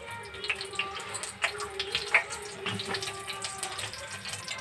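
Cumin seeds and asafoetida sizzling in a spoonful of hot oil in a small bowl over a gas flame, with scattered pops and crackles: the oil is hot enough for the tadka.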